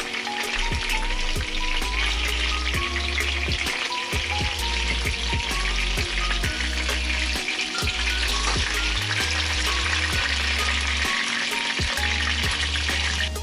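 Chicken pieces sizzling in hot oil in a frying pan, with frequent sharp clicks of a utensil knocking against the pan and plate as pieces are lifted out. Quieter background music plays underneath.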